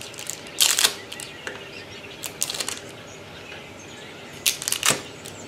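Light crackling rustles and small clicks in three short bursts, about half a second in, about two and a half seconds in and near the end, as set chocolate-coated truffles are pulled off the surface they were chilled on.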